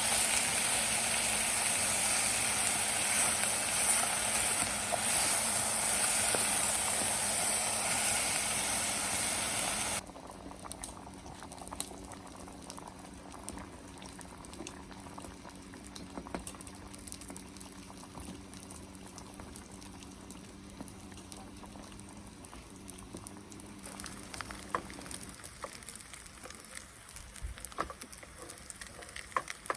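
Food cooking: a loud, steady hiss of sizzling or boiling for about ten seconds that cuts off suddenly, followed by a much quieter stretch of faint scattered crackles and clicks.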